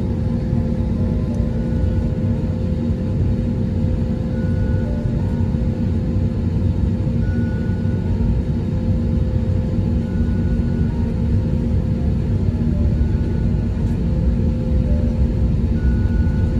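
Steady low rumble inside the cabin of an Airbus A320 taxiing, from its jet engines at taxi power and its wheels rolling, with a steady hum underneath.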